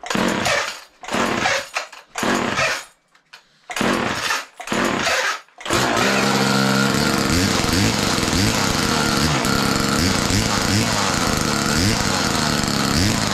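A vintage Homelite Super 2 two-stroke chainsaw being pull-started: about seven short pulls on the starter cord, then the engine catches about six seconds in. It keeps running, its speed rising and falling slightly at a regular pace.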